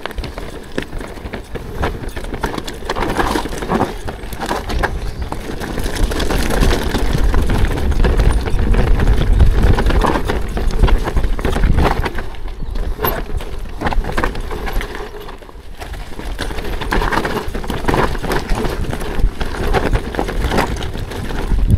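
ProPain Ekano 2 full-suspension mountain bike riding down a rocky trail: the tyres knock and rattle over rocks and slabs without let-up, with wind rumbling on the helmet- or chest-mounted action camera's microphone. It eases off briefly about fifteen seconds in.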